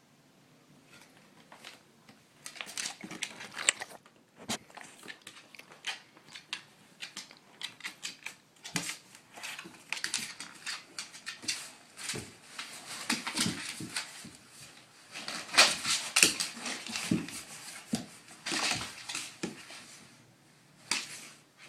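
Pit bull dog pouncing and scrabbling on a hard floor: an irregular, busy run of clicks, taps and scuffs from its claws and paws as it knocks a spider about.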